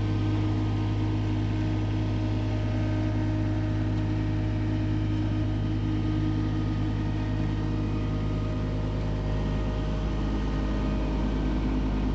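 Skid steer engine running steadily at a constant speed: an even, unchanging engine drone.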